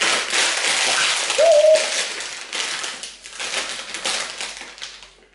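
A woman breathing out hard and hissing through her mouth, with a short hummed sound about a second and a half in. She is panting from the burn of very hot chilli noodles.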